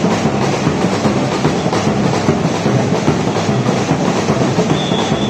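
Batucada samba percussion ensemble playing a dense, steady drum groove, many rapid hits over a regular low drum pulse.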